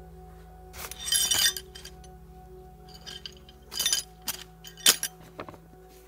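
Short bursts of rustling and crinkling from nylon stuff sacks and a dry bag being handled while camping gear is packed, over soft background music with steady held tones.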